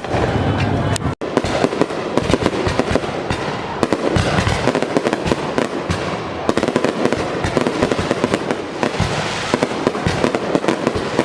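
Fireworks display: a dense, continuous barrage of bangs and crackles. There is a brief break in the sound about a second in.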